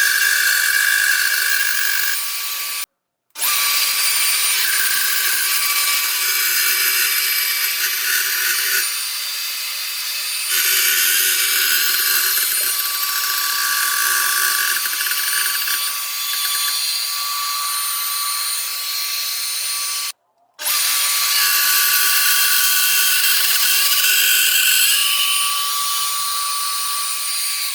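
Electric router running at high speed in a flattening and milling jig, its level shifting as the bit cuts. The sound cuts out abruptly twice for about half a second.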